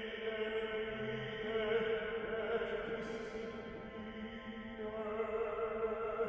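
A small vocal ensemble chanting in chordal recitation: several voices reciting together on one held chord, the pitches staying level throughout.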